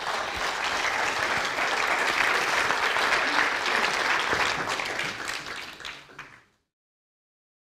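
Audience applauding, a dense patter of many hands clapping; it cuts off abruptly about six and a half seconds in.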